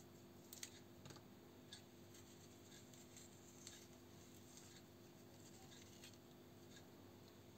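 Faint scraping and cutting of a small ceramic knife through a pear half as the core is scooped out and the skin trimmed: a few soft clicks and scratches over a low steady hum.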